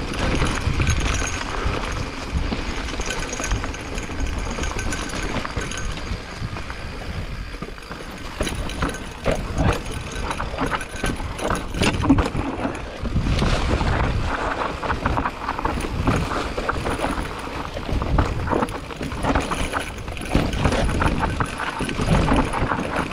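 Specialized Turbo Levo electric mountain bike riding down a rough trail: tyres rolling over dirt and rock, with the frame and chain rattling at every bump and a low rumble of wind on the microphone.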